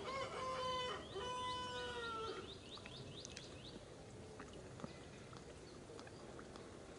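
Baby macaque crying: two long, drawn-out wails in the first two and a half seconds, followed by a few short high chirps.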